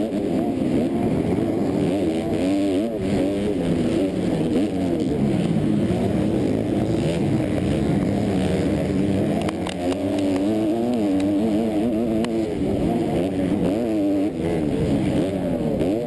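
Motocross race bike engine heard close up from the bike itself, revving hard and falling back again and again as the rider works the throttle and shifts through jumps and turns.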